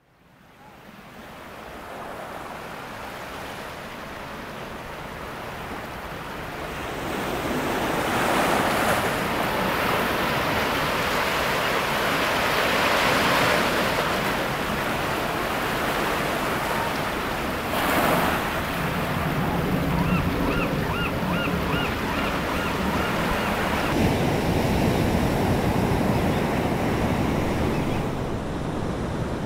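Ocean surf washing and breaking on the shore, fading in over the first couple of seconds and rising and falling in swells. About two-thirds of the way through, a quick run of short, high chirps repeats about three times a second.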